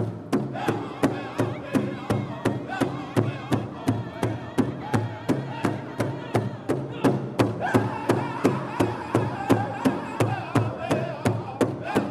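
Powwow drum group: several men beating a large hide-covered drum together with padded sticks in a steady, fast beat of about three strokes a second, while singing in unison over it.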